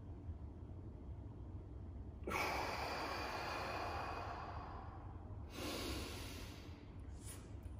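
A man's deep, forceful breath during a deep-breathing exercise, starting sharply a little over two seconds in and lasting about three seconds, followed by a second, shorter and softer breath near the end.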